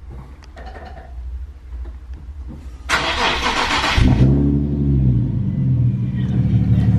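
Nissan 370Z Nismo's 3.7-litre V6 starting with its muffler removed: a brief crank about three seconds in, then the engine catches with a quick rise and fall of revs and settles into a steady idle through the muffler-delete exhaust.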